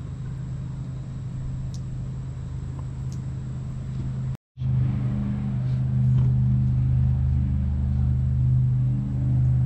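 Steady low engine hum. It cuts out abruptly for a moment about halfway through, then comes back louder.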